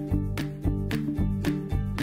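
Background music with a steady beat, about two strikes a second over held notes.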